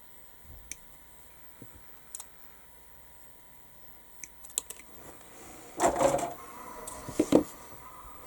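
Small sharp clicks and taps of plastic model parts and hobby tools being handled on a workbench, with a louder clattering rustle about six seconds in and a shorter one about a second later.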